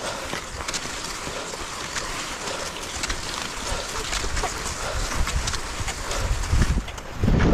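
Steady hiss and scattered crunching of movement on snow, with wind rumbling on the microphone, strongest near the end.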